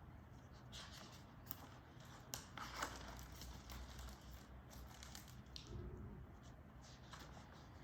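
Near silence: room tone with a few faint rustles and light taps from a picture book being handled.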